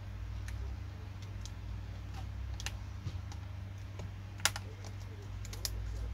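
Scattered light clicks and taps from a Dell Latitude E7440 laptop keyboard as a metal pry tool works between and along its keys to pry the keyboard loose, with a few sharper clicks in the second half. A low steady hum runs underneath.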